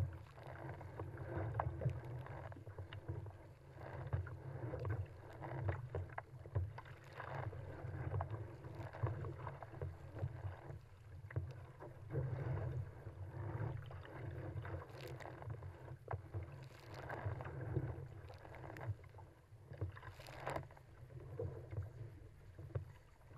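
Choppy sea water sloshing and slapping against a surfski's hull as it is paddled downwind through wind waves, with irregular splashes from waves and paddle strokes over a steady low wind rumble, heard through a camera mounted on the deck.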